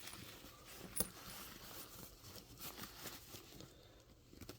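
Faint rustling and small clicks of a small doll jacket being handled, with one sharper click about a second in.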